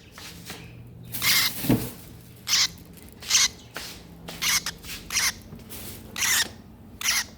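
Lovebird making short, sharp, high-pitched chirps, repeated roughly once a second, with a soft knock about two seconds in.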